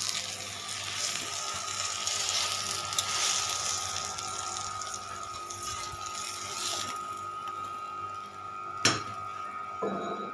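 Paratha frying in oil on a hot tawa, a hissing sizzle that dies down about seven seconds in as it is lifted off with a spatula. A single sharp knock comes near the end.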